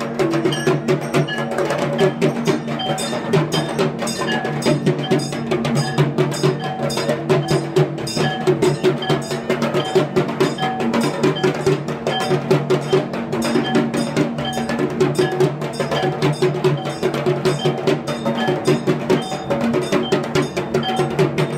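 Fast, continuous drumming, many strokes a second, over a steady sustained tone.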